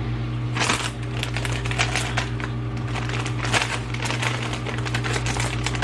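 A bag of potato chips crinkling and crackling as it is handled, with irregular sharp crackles over a steady low hum.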